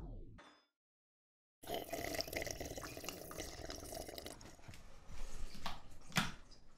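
A falling power-down tone, sweeping quickly down in pitch, cuts off just after the start as the lights go out. Dead silence follows for about a second, then a steady hiss with scattered faint clicks.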